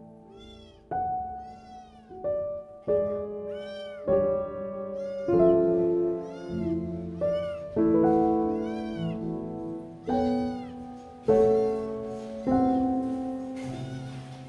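A kitten mewing over and over, high thin cries about once a second, while being handled and towelled dry after a bath, over background piano music.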